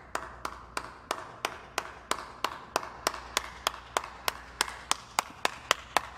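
One person clapping hands in a slow, steady rhythm, about three claps a second.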